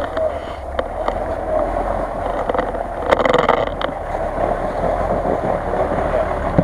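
Engine of a big-tyred off-road SUV running steadily as it crawls through deep snow, with a brief louder rush about three seconds in.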